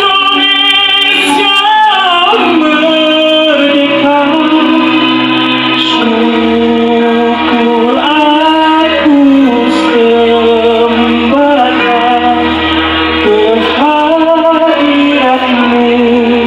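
A voice singing a song into a microphone over amplified backing instruments with a steady bass line. The sung notes waver with vibrato.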